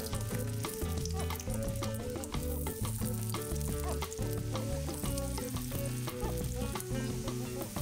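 Vegetable patties of grated zucchini, carrot and potato sizzling in hot oil in a frying pan as they are laid in one by one. Background music plays underneath.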